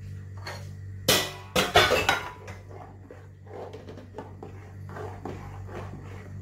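Loud clattering of kitchen utensils and dishes about a second in, then the repeated scrape of a spatula stirring a thick rice and coconut-milk pudding in a pot, over a steady low hum.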